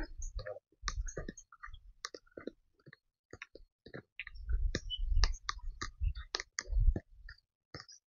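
Footsteps on a forest dirt path strewn with dry leaves and twigs: irregular crackling clicks and soft thuds, busier from about halfway through.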